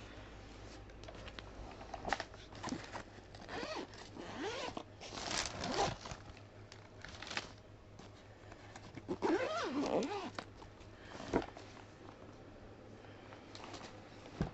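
Hard-shell suitcase being handled: zipper rasps and clicks. Twice a wavering pitched sound rises and falls, about four seconds in and again near ten seconds.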